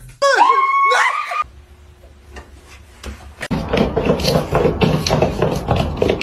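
A cat meowing once, a loud call of about a second that bends in pitch, near the start. From about halfway through comes a busy scratching and rustling clatter.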